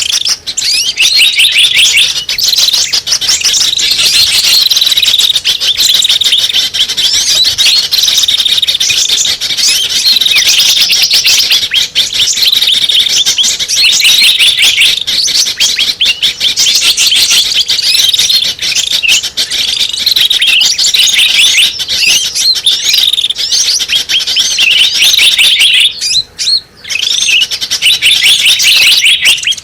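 Bird-lure recording of many small birds chirping and twittering at once: a loud, dense, unbroken chorus of short high chirps repeating over and over, with a brief gap near the end.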